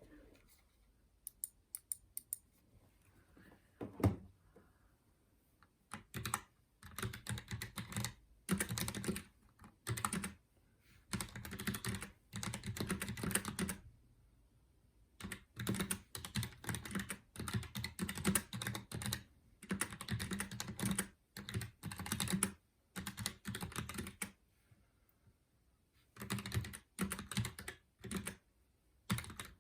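ROCCAT Vulcan 120 AIMO mechanical gaming keyboard being typed on: a few single keystrokes, then bursts of fast typing a few seconds long with short pauses between them.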